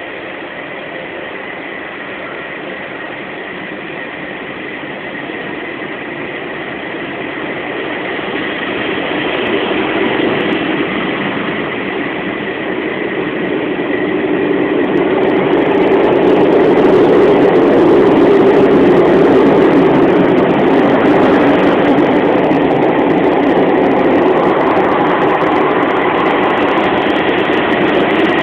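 Automatic car wash heard from inside the car: the gantry's rotating brushes and machinery working over the body in a steady rushing swish. It grows louder about 8 s in and again from about 15 s as the brushes reach the windscreen, with a thin steady high whine underneath.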